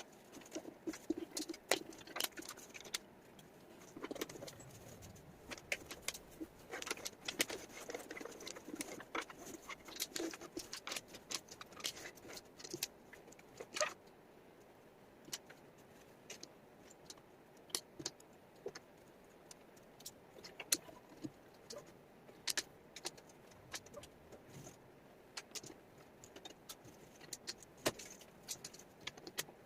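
Small wooden jigsaw puzzle pieces clicking and clattering as they are handled, sorted and set down on a table: irregular sharp taps, thick in the first half and thinning out later.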